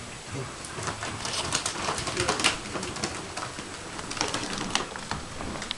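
A ferret scrabbling through a ribbed flexible plastic duct tunnel, making irregular crinkling and scratching noises, busiest from about a second in to the middle.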